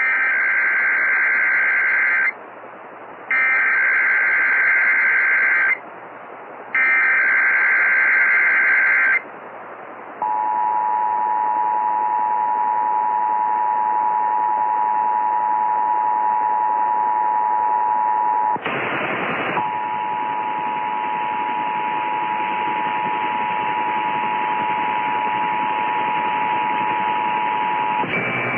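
Emergency Alert System test tones heard over a radio with static hiss. First come three SAME header data bursts, harsh warbling digital screeches each about two seconds long with a second's gap between them, which open the alert message. Then the steady two-tone EAS attention signal (853 and 960 Hz sounded together) runs on, broken once about 18 seconds in by a second of static.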